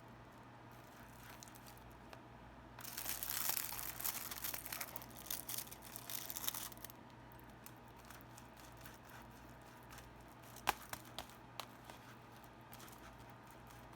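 Plastic film being peeled off a microwaved frozen-meal tray: crinkling and tearing for about four seconds, then a few light clicks near the end.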